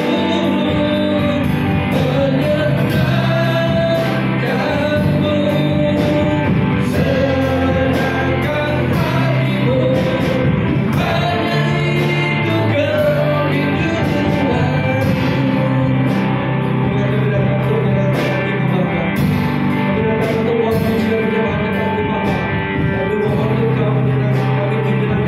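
Live worship band playing a song, with male and female voices singing Indonesian lyrics over electric guitar, bass guitar and drums.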